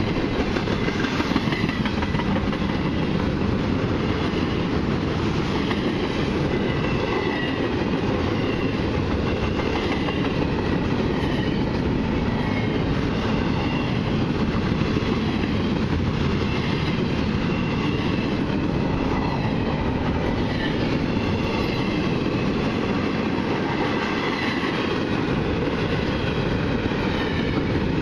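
Long intermodal freight train's cars passing at speed: a steady rumble of steel wheels on rail with clattering from the cars and a faint wavering squeal above it.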